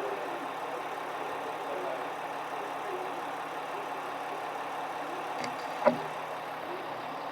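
Train standing at a station platform with its engine running steadily, a low hum, and a single sharp knock about six seconds in.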